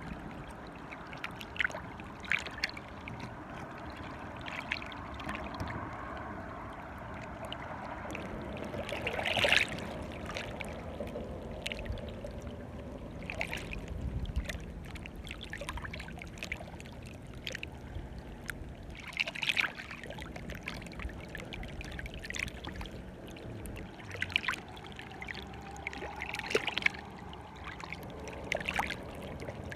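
Small waves lapping and splashing at the water's edge: a steady wash broken by irregular sharp splashes, a few of them louder.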